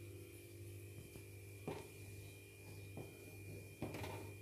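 Low steady electrical hum with a few soft scrapes of a wooden spatula stirring thickening milk in a steel kadhai, the loudest near the end.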